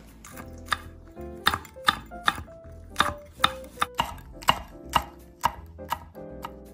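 Chef's knife slicing green chili peppers on a wooden cutting board, each cut landing as a sharp knock on the board, about two a second, over background music.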